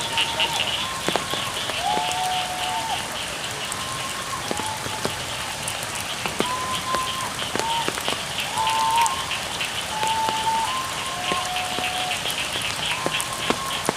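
Steady rain with sharp drip ticks, and frogs calling in short, level-pitched notes about once a second over a fast, high pulsing chorus.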